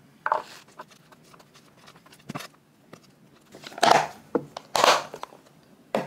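Food-preparation handling noises: a few sharp knocks and several brief rustling bursts, the loudest about four and five seconds in.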